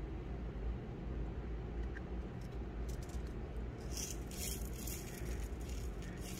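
A small plastic box of Miyuki Delica glass seed beads being pried open by hand, then tipped so the tiny beads trickle out with a light, crisp rattling from about four seconds in. A low steady hum lies underneath.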